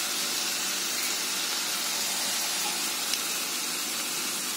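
Tomato, onion and chilli masala sizzling in a frying pan over a low gas flame, a steady even hiss. There is a light click about three seconds in.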